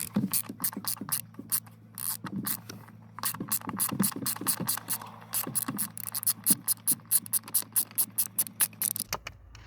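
Ratchet wrench fitted with a Torx T30 bit clicking in quick, even runs while a small bolt is unscrewed. There is a short break about three seconds in.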